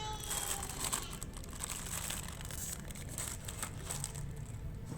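Toy packaging crinkling and rustling in irregular bursts as it is handled and unwrapped.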